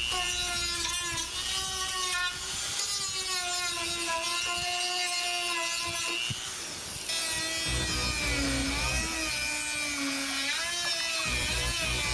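Small power tool whining as it cuts to enlarge the holes in the back of a plastic headlight housing. Its pitch wavers and dips as it is loaded.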